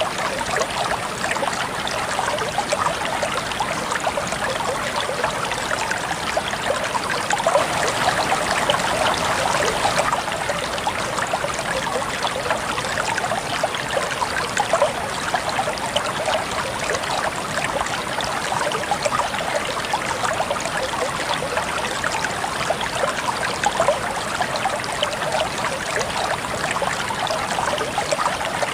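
A shallow river or stream babbling and trickling steadily over rocks.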